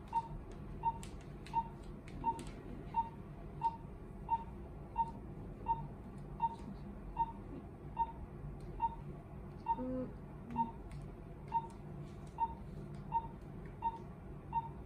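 Patient monitor's pulse beep, a short steady tone repeating about 80 times a minute in time with the patient's heartbeat.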